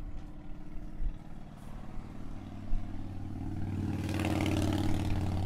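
A motor vehicle's engine running with a steady low hum, growing louder from about three seconds in, with a few sharp metallic clanks.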